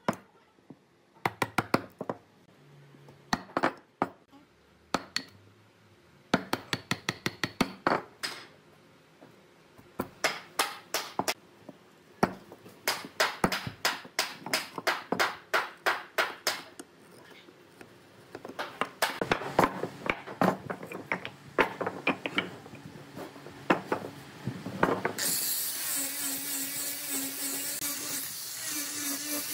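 A wood chisel is struck repeatedly in quick bursts of sharp blows as it cuts into the end grain of a log. Near the end an angle grinder with a sanding disc starts up and runs steadily, with a whine and a hiss as it sands the log.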